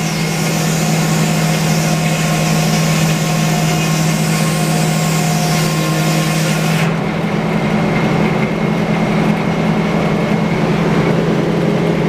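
Circular sawmill at work: a large toothed circular blade hisses through a log for about seven seconds over a steady engine hum, and the hiss stops abruptly as the cut ends while the engine keeps running.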